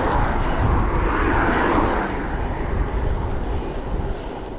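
Wind rushing over a bike-mounted action camera, with tyre and road noise, while riding a gravel bike on a road; the rush swells in the first couple of seconds and eases off toward the end.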